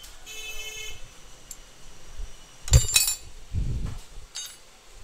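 Metal tools and brake parts clinking as a spanner works on a motorcycle's rear disc brake master cylinder: a short metallic ringing rattle near the start, a loud double clink about three seconds in, then a dull thump and one fainter clink.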